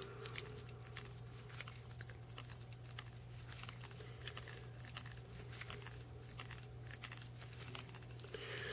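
Faint, irregular ticks and rustles of hands working a bobbin and thread at a fly-tying vise while tying on black thread, over a steady low hum.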